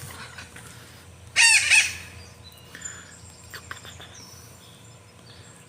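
A bird's loud call about a second and a half in: a quick run of two or three high, arching notes.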